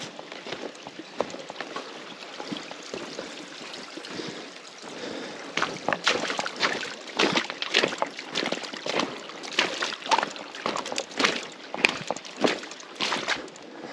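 Steady rush of a river, with a person's footsteps wading and splashing through the water; the steps grow louder from about halfway in.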